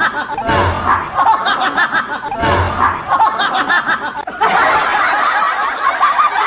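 Snickering laughter, a short laugh repeating almost identically about every two seconds, then a denser, steadier run of laughter from about four seconds in.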